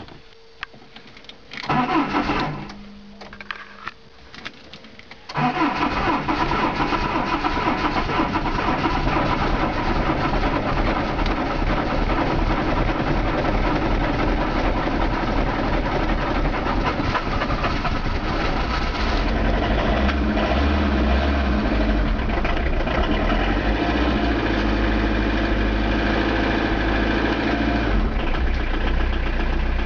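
Citroën C15 diesel engine cold-started at about −18 °C after standing two days with the glow plugs heated: a short loud burst about two seconds in, then at about five seconds it cranks and catches. It then keeps running, its sound growing deeper and louder from about twenty seconds in until near the end.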